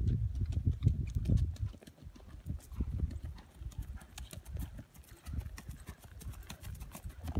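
Hoofbeats of a ridden Tennessee Walking Horse moving at a quick gait along a dirt path: a fast, even run of dull thuds, loudest in the first second and a half, fainter through the middle and louder again near the end.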